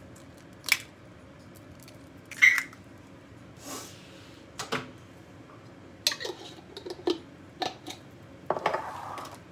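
Scattered sharp clicks and knocks of kitchen handling: an egg cracked open and dropped into a plastic mixing bowl, with the loudest knock about two and a half seconds in. After that come lighter clicks as spice jars are picked up from the countertop, and a short scrape near the end.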